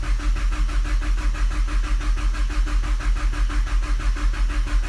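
Mazdaspeed3 engine being cranked by its starter motor, turning over in a fast, even rhythm of compression pulses and never catching. It cranks but won't fire, which the owner puts down to no spark.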